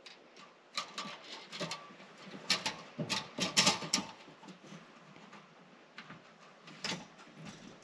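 Irregular clicks and light knocks of the fuel pump and sender unit's halves being handled and fitted back together. The clicks come in a quick flurry a few seconds in, with a single knock near the end.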